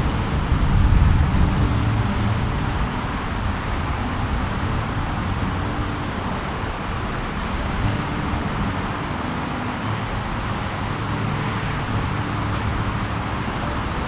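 Steady road traffic noise from passing cars, a continuous low rumble with no single event standing out.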